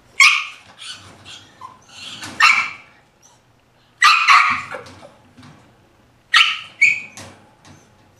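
A puppy making short, sharp sounds, often two in quick succession, repeating about every two seconds.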